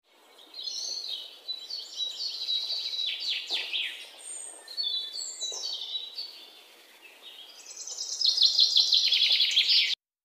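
A songbird singing high, warbling phrases with quick falling notes, a short lull, then a fast, loud trill that cuts off abruptly near the end.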